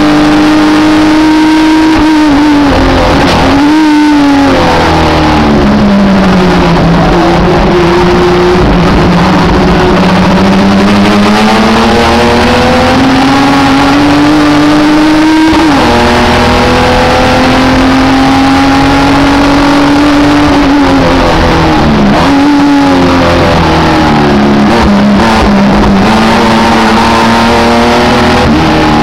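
Race car engine heard loud from inside the cockpit, pulling hard with its pitch climbing steadily. The revs drop sharply a few times at gear changes, around 3.5, 15.7 and 22.5 s.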